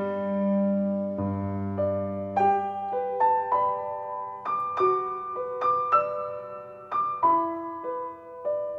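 Piano playing a slow, gentle melody, held notes at first and then single notes struck about twice a second over sustained lower tones.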